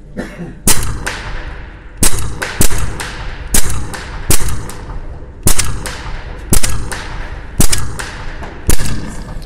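Rapid semi-automatic fire from an Edgun Leshiy 2 PCP air rifle in 6.35 mm: nine sharp shots, roughly one a second, with a short pause after the first. Each shot is followed by a short echo.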